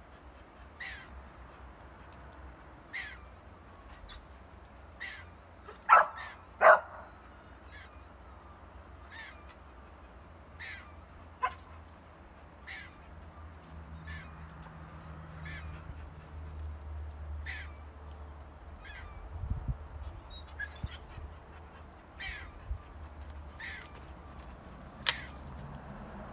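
A short, sharp animal call repeated about every two seconds, with two loud dog barks close together about six seconds in.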